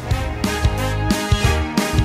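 Background music: a pop track with a steady drum beat.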